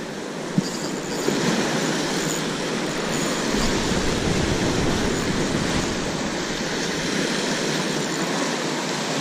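Sea surf breaking and washing over rocks just below: a steady rushing noise, with a deeper rumble for a couple of seconds in the middle.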